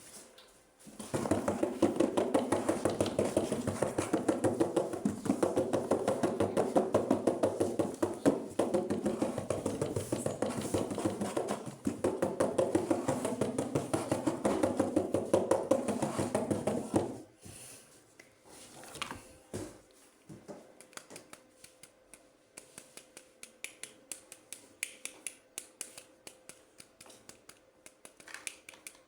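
Toy packaging being handled and opened up close: a long stretch of dense, rapid scratching and rustling that stops suddenly about 17 seconds in, followed by scattered light plastic clicks and taps.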